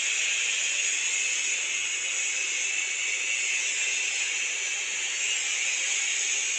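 Electric arc welding, a steady even hiss of the arc as a weld bead is laid.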